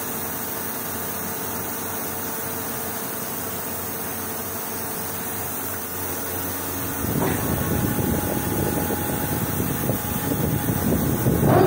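Heavy workshop machine running with a steady hum and a faint held tone. About seven seconds in, a louder, uneven rumble sets in and swells again near the end.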